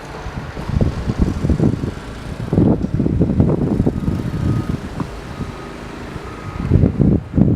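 Wind gusting against the microphone in uneven low rumbles, with faint short beeps repeating in the background from about halfway through, like a vehicle's reversing alarm.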